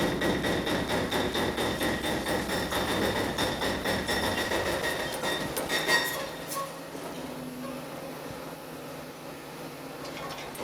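Demolition machinery at work on a building: dense, irregular clanking and crunching of rubble and debris over a steady high whine. About six seconds in the clatter stops suddenly, leaving a quieter low engine hum.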